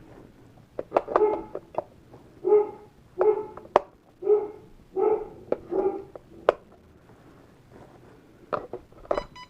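Dog barking about six times in quick succession, with sharp clicks in between and a few more clicks near the end.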